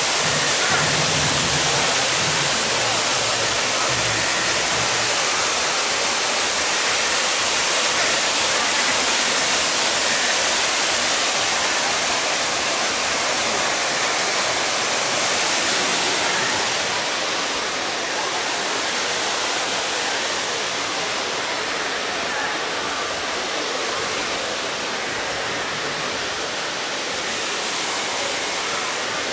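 Theme-park waterfall pouring down rockwork onto plants and rocks: a steady rushing splash that eases slightly a little past halfway.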